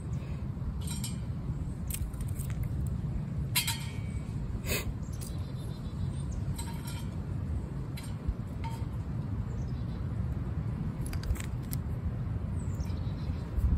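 Wind buffeting the microphone, with scattered sharp clicks and snaps as small wood pieces drop into a stainless-steel wood stove and its just-lit kindling fire crackles.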